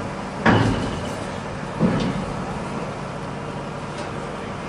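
Truck engine running steadily, with two loud thumps, about half a second in and again a little under two seconds in.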